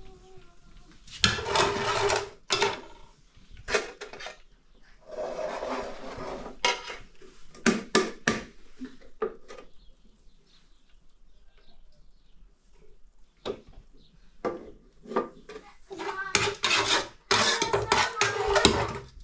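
Metal ladle clinking and scraping against a steel cooking pot, with pots being set down and shifted, in a series of short clanks.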